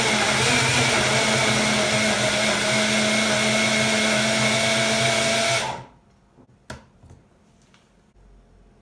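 A small household appliance's electric motor running fast with a steady whine, switched off a little under six seconds in, followed by a single click.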